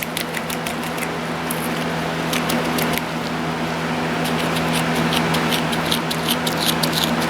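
Grease being worked by hand into a front spindle bearing: irregular small squishing clicks and ticks, busier in the second half. A steady low hum runs under it.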